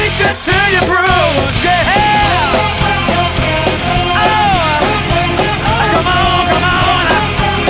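Rock band music with a steady, dense low end and a lead melody of notes that slide up and down.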